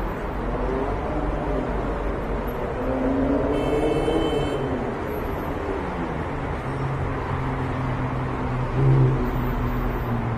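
Road traffic going by: car engines rising and falling in pitch as vehicles pass, over a steady rush of noise, with one louder engine note about nine seconds in.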